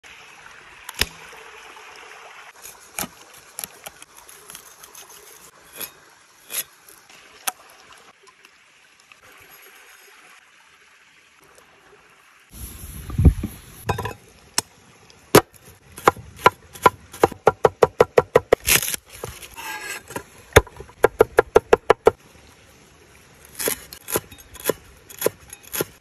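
A large kitchen knife chopping on a thick wooden log-slice board, cutting onion and greens: a heavy thump, then quick even strokes at about four or five a second, pausing and resuming. Before that, only scattered light knocks over a faint hiss.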